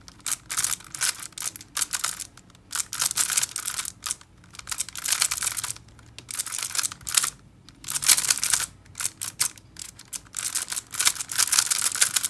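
GiiKER i3s smart 3x3 cube being speedsolved: rapid plastic clicking and clacking of its layers turning, about six turns a second. The turning comes in quick bursts broken by short pauses.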